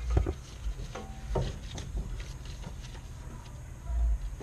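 Light clicks and knocks of a new CV axle being worked onto its shaft on a 2005 Honda Odyssey, with a dull thump near the end.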